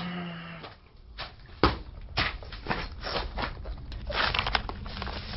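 Handling noise from a handheld camera being moved about: irregular knocks, bumps and rustling, the sharpest knock about a second and a half in.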